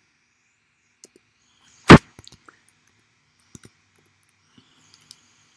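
Computer keyboard keystrokes: one loud, sharp click about two seconds in, followed by a few scattered light key clicks.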